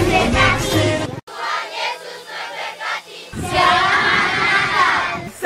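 Background music with a steady bass, cut off abruptly about a second in. A crowd of children's voices follows, rising to loud shouting and singing from about three seconds in.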